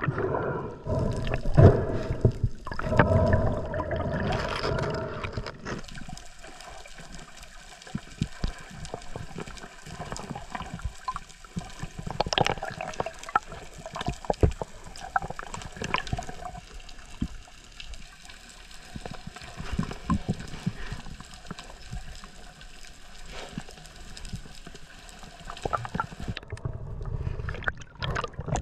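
Underwater sound picked up inside a camera housing: a steady wash of water noise dotted with many small sharp clicks and crackles, louder and fuller with water movement in the first few seconds.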